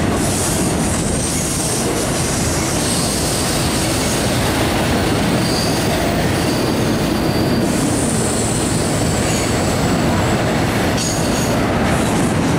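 Double-stack intermodal freight cars rolling past: a steady rumble of steel wheels on rail, with thin, high wheel squeals that come and go several times.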